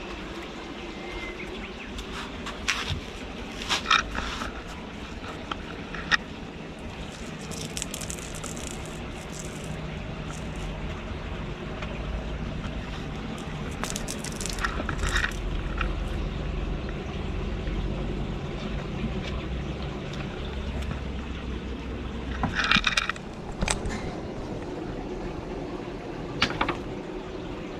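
Kittens playing on a concrete floor among wire cages: a few scattered light knocks and scrapes, loudest about four seconds in and again near the end, over a steady rushing background noise.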